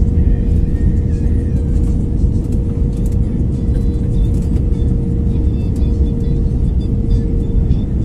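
Airliner cabin noise in flight: a steady, loud roar of the engines and rushing air, with a constant droning hum running through it.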